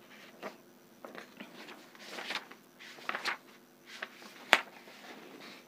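Paper pages of an atlas rustling as they are handled and turned, in a few short bursts, with one sharp snap of paper about four and a half seconds in.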